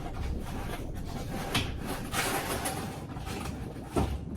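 Objects being handled indoors: a sharp knock about a second and a half in, a short rubbing rustle, and a louder knock near the end.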